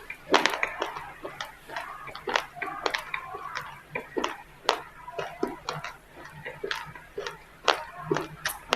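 Raw, uncooked rice grains being chewed and crunched between the teeth: a rapid, irregular run of sharp crunching clicks.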